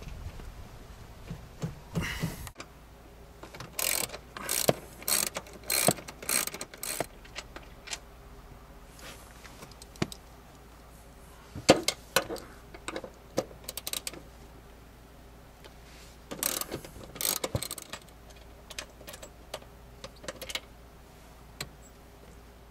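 Socket ratchet wrench clicking in several short bursts of rapid clicks as it turns the seat-track bolts holding a car seat to the floor.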